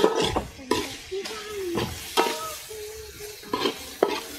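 A metal spoon stirring and scraping chopped onions, ginger, garlic and green chillies as they sizzle in oil in a large metal uruli, knocking against the side of the pan about six times.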